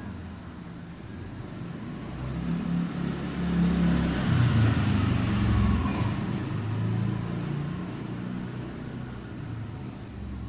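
A motor vehicle passing by: its engine hum grows louder to a peak about halfway through, then fades away.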